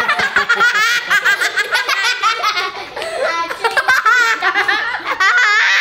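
Several children laughing together, high-pitched and without a break.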